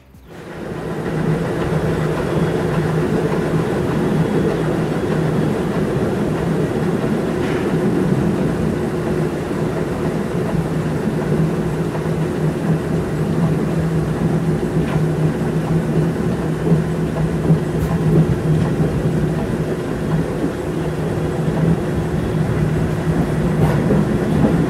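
Steam locomotive running along the line, heard close up from a microphone mounted on the front of the locomotive: a steady mechanical running and rolling noise that fades in over the first second or two.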